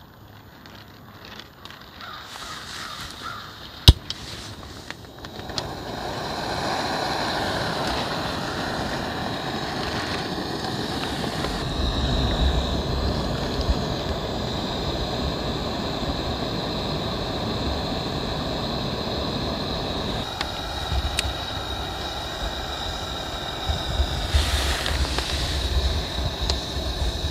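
Soto Windmaster canister stove being lit: a single sharp click of the igniter about four seconds in, then the burner catches and runs with a steady hiss under a kettle.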